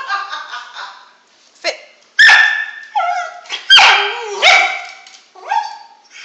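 A dog making a run of short, sharp bursts of sound. The loudest come about two seconds in and twice more over the next two and a half seconds.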